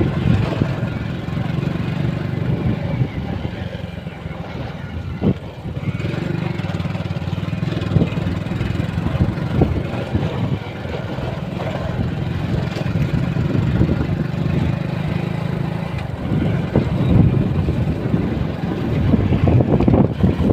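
Motorcycle engine running steadily while riding over a rough dirt track, with a few sharp knocks and rattles from bumps.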